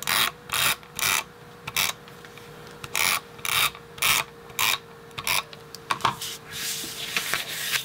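Short, quick strokes of a tape-runner adhesive dispenser rasping along the back of a paper border strip, about two a second, with a faint steady hum underneath.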